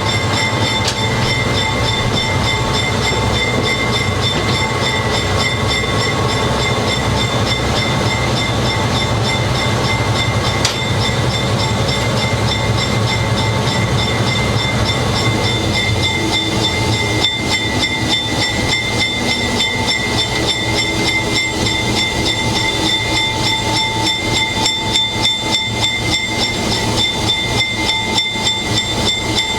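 Cab of a GE 80-ton diesel switcher locomotive under way: the engine's low drone with a steady high whine over it, and the wheels clicking over the rail joints. About halfway through the engine drone eases off and the regular wheel clicks stand out more.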